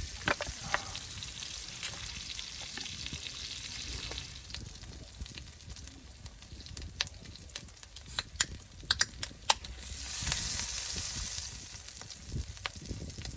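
Meat frying over a small wood fire: a steady sizzle with scattered sharp pops and crackles through the middle, and a louder hiss welling up near the end.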